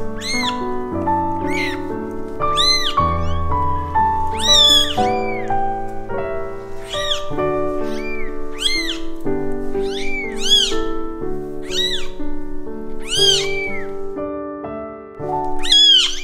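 Newborn kittens mewing: thin, high cries that rise and fall, about one a second, over background music with held notes.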